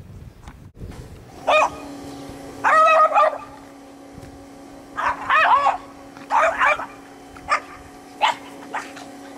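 A dog barking in a run of about seven barks: the early ones drawn out with a wavering, whiny pitch, the last few short and sharp.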